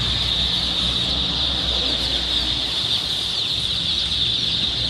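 Hundreds of day-old chicks peeping all at once: a dense, continuous chorus of high, short, falling peeps.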